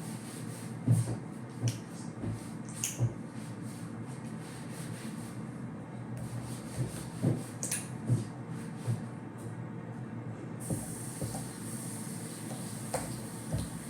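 Slime being worked by hand while food colouring is mixed in: scattered soft squishes, clicks and small knocks over a steady low hum.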